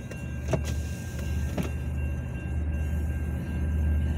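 Car idling, heard from inside the cabin: a steady low hum, with faint steady high-pitched tones above it and two sharp clicks about a second apart near the start.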